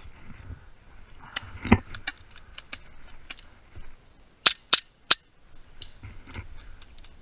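Airsoft guns firing single shots: a scattering of faint clicks and pops, a heavier knock about two seconds in, then three loud sharp shots in quick succession about four and a half seconds in.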